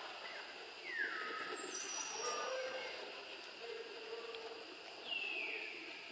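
A few high, falling calls, one about a second in and another near the end, over a steady drone of insects.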